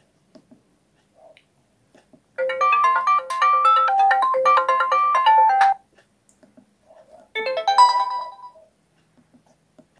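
Sony Ericsson C510 mobile phone playing its ringtones: a quick run of electronic melody notes over a repeated low note for about three seconds, then after a pause a second, shorter phrase of about a second.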